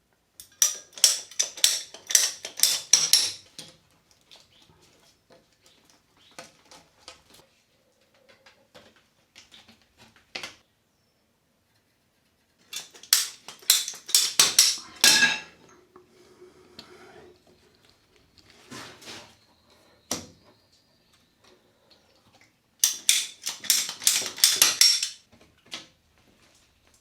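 Three spells of rapid clattering and knocking, each a couple of seconds long, with scattered lighter knocks between them: hard parts being handled and fitted while plumbing pipework is lined up.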